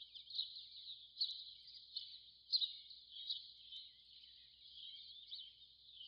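Faint background chorus of small birds chirping and twittering, many short high notes overlapping in a continuous band, with a few louder chirps standing out.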